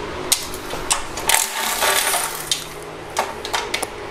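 Irregular clicks and short rasping bursts from a ratchet and 10 mm socket backing out oil pan bolts. A faint low hum runs for about a second in the middle.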